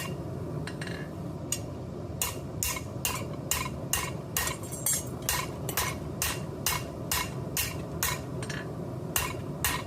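Blacksmith's hand hammer striking hot steel on an anvil while forming a nail head: a few spaced blows, then from about two seconds in a steady run of ringing strikes at roughly two to three a second, over a steady low rush.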